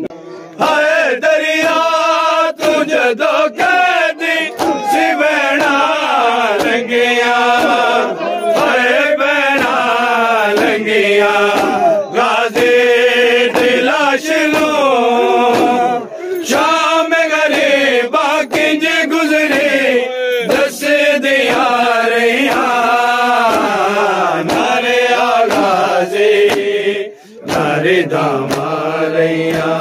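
A group of men chanting a Shia noha lament in unison, with sharp hand strikes on chests (matam) cutting through the singing. The chant pauses briefly near the end.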